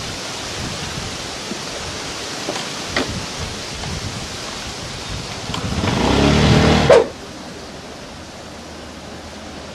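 A motor scooter's engine revs up about six seconds in, growing louder for about a second before cutting off suddenly. Before it there is a steady background hiss, and after it a quieter steady hum.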